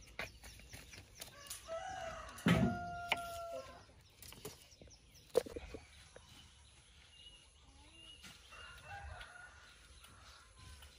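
A rooster crowing once, about two and a half seconds in, the loudest sound, with a few sharp clicks and fainter chicken calls around it.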